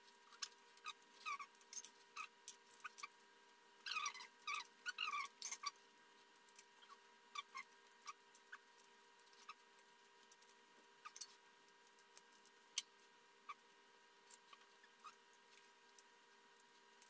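Faint eating sounds from someone working through blue crab: scattered sharp clicks and cracks of shell, with a cluster of short squeaky sucking and slurping noises about four seconds in.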